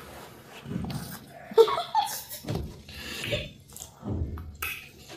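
Close mouth sounds of eating fufu and okra soup by hand: irregular chewing and lip-smacking, with one sharp click about a second and a half in.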